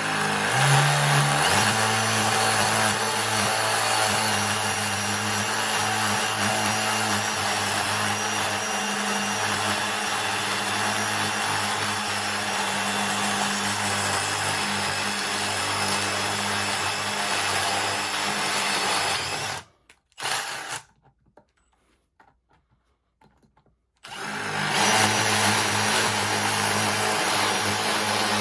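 A Milwaukee M18 Fuel Gen 3 impact driver hammering a concrete bit into a cement brick, running steadily under load. It stops briefly after about 20 seconds, with a short blip, then starts drilling again near the end. The cement is very tough to get through.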